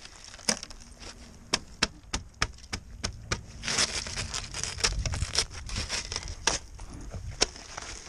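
Frozen ice and snow being picked and scraped off a car's headlight and corner lamp by a gloved hand: a run of sharp clicks and crunches, thickening into steadier crunchy scraping from about halfway in.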